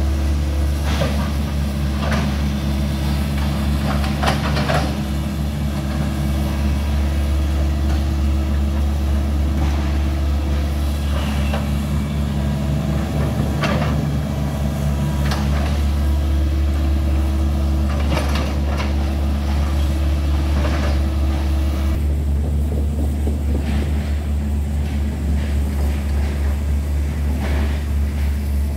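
Hitachi crawler excavator's diesel engine running steadily under load, a constant low hum. Scattered sharp knocks and clanks come from the machine working.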